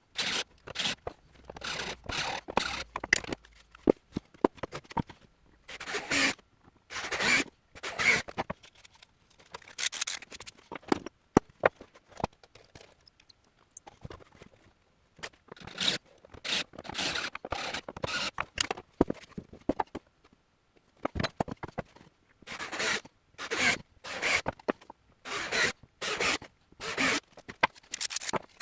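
Repeated short scraping strokes in irregular runs, broken by brief pauses.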